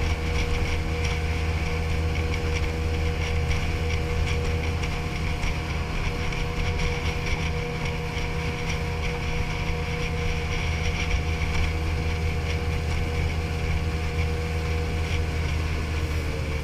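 Outboard motor of a small aluminium boat running steadily under way, a constant drone over the rush of water and wind.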